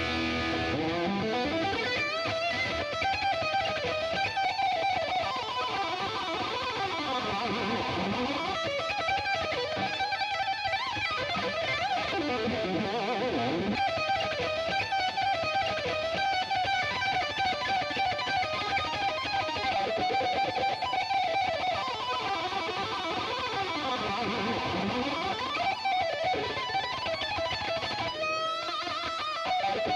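Electric guitar playing a fast heavy-metal shred solo: rapid runs of notes, with three long sweeps that dive down in pitch and climb back up.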